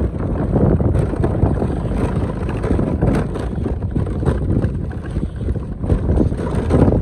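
Motorcycle riding over a rough stony track: the engine running under a heavy rush of wind on the microphone, with frequent short knocks and rattles from the rocks and gravel under the wheels.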